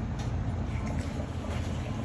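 Pot of vegetarian chili soup simmering: a steady low rumble with a few faint bubbling pops.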